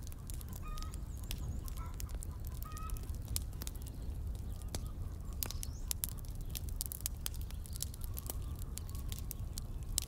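Domestic fowl giving short calls, several in the first few seconds and fainter later, over the sharp crackles and pops of a wood fire.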